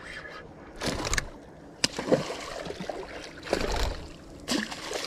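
A hooked fish splashing and thrashing at the water's surface near the bank, in several short splashy bursts.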